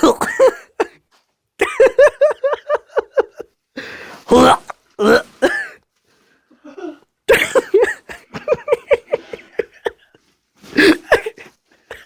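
A person coughing and gagging in several bursts of quick, short heaves, a reaction to the stench of rotting food.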